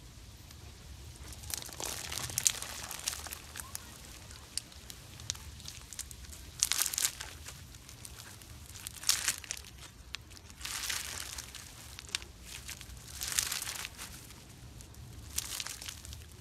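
Clear slime packed with plastic pony beads being squeezed and stretched by hand, giving crinkly, crackling bursts with sharp clicks about every two seconds.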